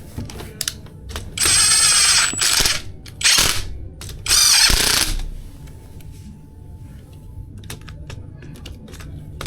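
A small hand-held power tool motor running in three short bursts: about a second, then half a second, then just under a second.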